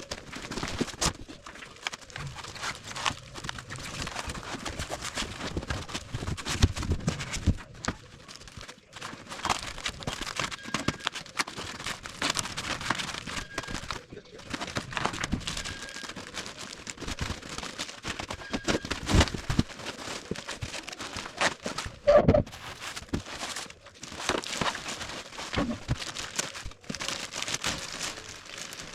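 Packaging being handled and opened: plastic wrap and cardboard crinkling and rustling, with scattered clicks and knocks and one louder knock about two-thirds of the way through.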